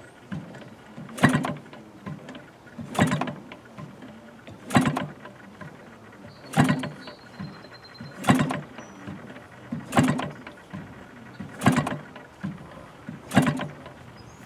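A Sachs Dolmar 3.7 (61cc) two-stroke model-aircraft engine being hand-flipped by its propeller, eight sharp flips about every second and a half to two seconds, each a short burst as the engine turns over. It does not catch: these are first-start flips drawing fuel up to the carburettor.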